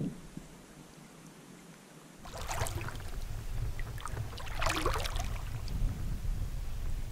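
Double-bladed kayak paddle stroking through the water beside a solo canoe: two splashy strokes about two seconds apart, over a steady low wind rumble on the microphone that sets in about two seconds in.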